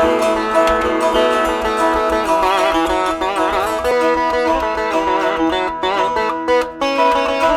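Acoustic veena played solo, with no pickup attached: plucked notes with wavering pitch bends that slide between notes.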